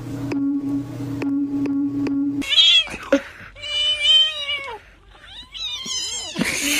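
A steady hum with faint ticks about twice a second, then, after about two and a half seconds, a cat nursing a litter of kittens meows: several calls, including one long drawn-out meow, mixed with shorter, higher mews.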